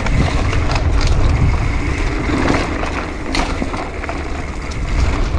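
Mountain bike descending a dirt trail at race pace, picked up by its on-board action camera: a steady rumble of tyres on dirt with scattered clicks and rattles from the bike over bumps.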